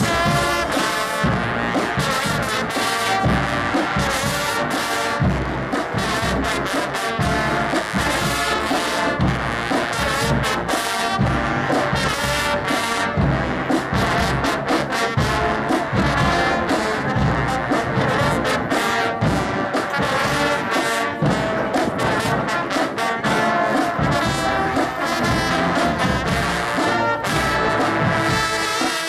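Low brass choir, a large ensemble of trombones, tubas and other low brass horns, playing a piece together in full harmony with a steady beat.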